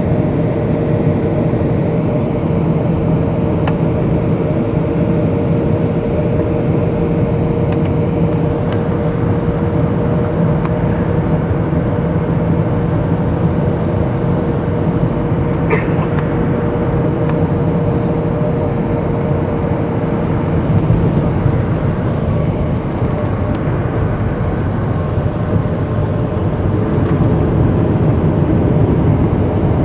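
Cabin noise of a Boeing 757-200 on its landing approach, heard from a window seat beside the wing: a steady drone of Pratt & Whitney PW2000 turbofan engines and rushing air, with a fixed low hum and a fixed higher hum running through it. There is a single short click about halfway through, and the noise swells slightly a couple of times in the second half.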